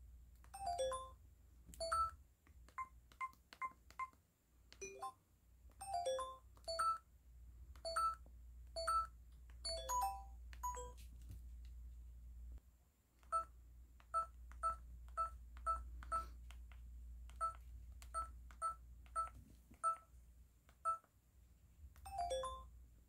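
LG Wine 3G flip phone's xylophone keypad tones: a short pitched xylophone note sounds for each key pressed. Some come in quick runs, and later they follow in a steady series of about two a second.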